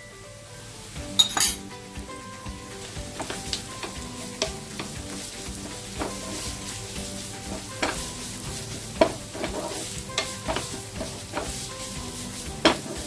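Shredded cooked chicken sizzling in oil in a frying pan as it is stirred, with the spatula knocking and scraping against the pan at irregular moments; the loudest knock comes about a second in.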